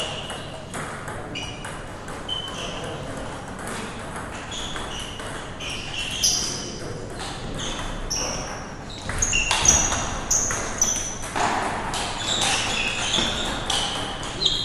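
Table tennis balls clicking off paddles and tables in quick irregular hits, mixed with short high squeaks of shoes on the floor.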